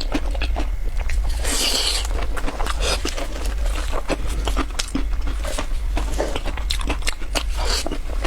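Close-up crunching and chewing of pumpkin biscuits, a rapid run of crisp bites and crackles with a louder crunch about one and a half seconds in, over a steady low hum.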